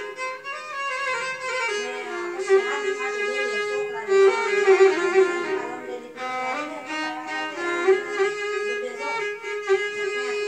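Solo violin bowed continuously, playing a wavering melody over a steady drone note that sounds throughout.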